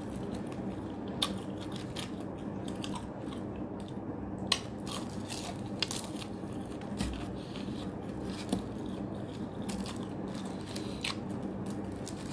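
A crispy breaded fried chicken drumstick being bitten and chewed close to the microphone, with irregular crunches of the coating. A steady low hum runs underneath.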